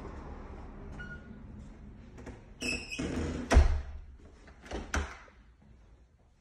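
A door: a short squeak, then a loud knock as it shuts, and a lighter knock about a second and a half later.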